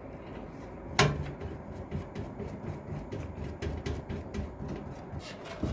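Screws being driven with a screwdriver to fasten a motherboard into a desktop computer case: a sharp metallic click about a second in, then a run of small irregular clicks and scrapes as the screws turn.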